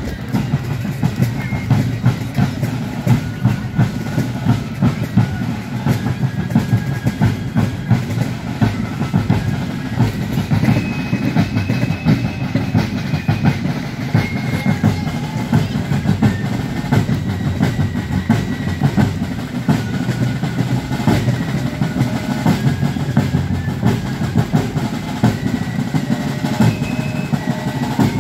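Fife and drum corps playing while marching: fast, rattling drum strokes under a high, shrill fife melody.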